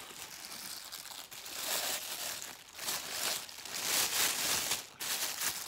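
Clear plastic bag crinkling as it is handled, a rustle that swells and fades several times.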